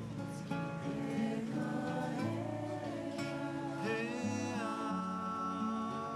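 A song: acoustic guitar strummed under singing voices holding long, slow notes.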